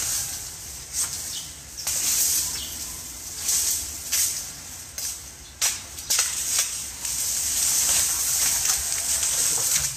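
Dry brush and dead leaves rustling and crackling in repeated swells as they are pulled and handled, with a few sharp knocks of wood.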